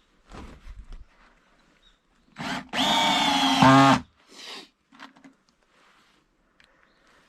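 Power drill running: a brief trigger pull, then a steady run of about a second and a half that slows in pitch just before it stops. Light handling knocks come before and after.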